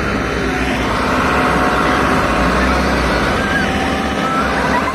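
Farmtrac 6055 T20 PowerMaxx tractor's diesel engine running steadily.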